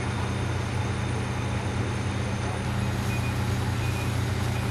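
Large diesel engine of fire apparatus running steadily, with two short high-pitched beeps in the second half.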